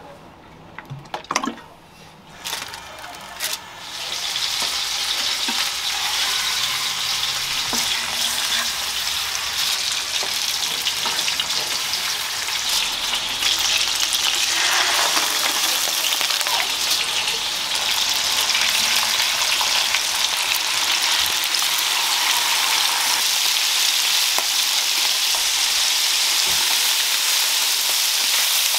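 A few sharp knocks and clicks, then from about four seconds in a steady sizzle of cutlassfish pieces frying in hot oil in nonstick pans.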